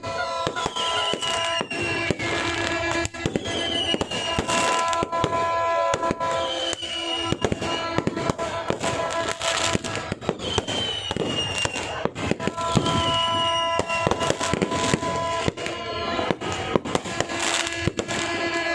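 Fireworks bursting and crackling in rapid, continuous succession, with music of held tones and a repeating falling note playing under them.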